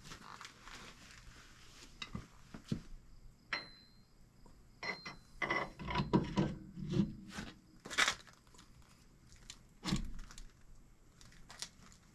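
Heavy truck wheel hub being worked onto the axle spindle: scattered metal clinks, scrapes and knocks, with short ringing clinks about four and five seconds in and a few heavier knocks later on.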